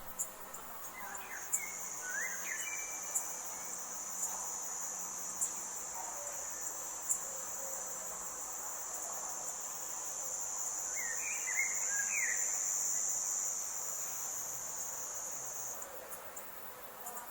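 Forest ambience with a steady high-pitched insect trill that starts about a second and a half in and stops shortly before the end. Two brief clusters of bird chirps sound over it, one early and one about two-thirds of the way through.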